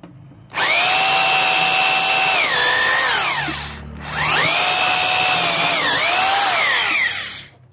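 Electric drill running in two bursts of about three seconds each, with a short pause between them. Each burst is a high motor whine that holds steady and then drops in pitch as the drill slows under load in the wood.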